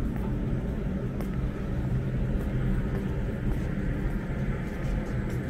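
Steady low rumble with a hum in it, the background noise of an outdoor city space, with a few faint ticks.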